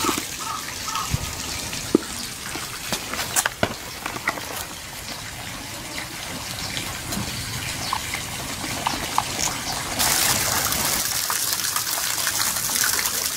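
Steady rush of flowing water, louder and brighter from about ten seconds in, with sharp crunching clicks through the first half as a capybara chews leafy greens from a plastic bucket.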